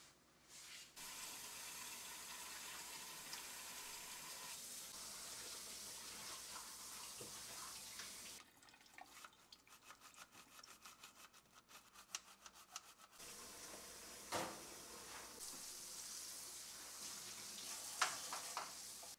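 Kitchen tap running into a sink, then a bristle brush scrubbing the perforated drip-tray insert of a Breville espresso machine in quick regular strokes, then the tap running again with a couple of knocks.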